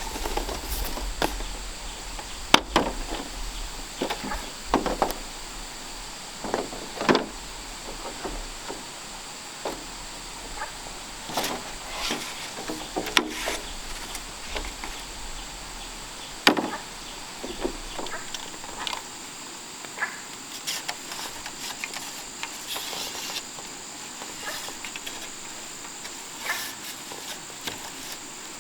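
Bamboo knocking and clattering as it is worked by hand: irregular sharp knocks, two of them louder than the rest. Insects buzz steadily behind, a high, even drone.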